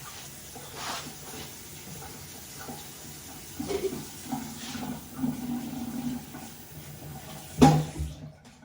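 Kitchen tap running while eggs are rinsed under it, with a few light knocks. A loud knock comes near the end, and the water shuts off right after.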